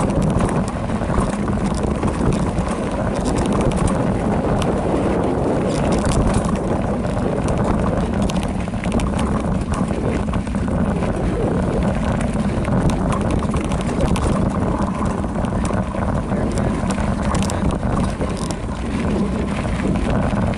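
Specialized Rockhopper Comp mountain bike rolling downhill on a rocky dirt trail: a steady rumble of tyres on dirt and loose stones, with wind rushing over the microphone and frequent sharp clicks and rattles from the bike jolting over rocks.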